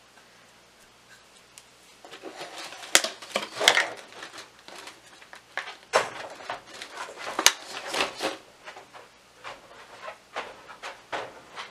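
Hands digging in potting soil and pulling a clump of tomato seedlings out of a plastic seedling tray: irregular rustling and scraping with sharp crackles, starting about two seconds in.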